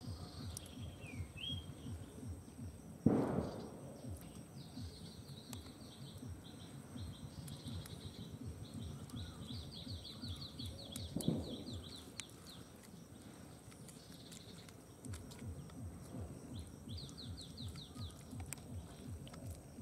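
A steel spoon mashing boiled potato and aubergine against a banana leaf on hard ground: soft, rapidly repeated dull taps, with two louder knocks about three seconds in and again about eleven seconds in. Small birds chirp and trill throughout.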